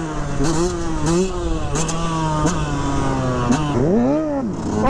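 Motorcycle engine revving, its pitch going up and down with short throttle blips, holding steady for a while in the middle, then a quick high rev that falls away near the end.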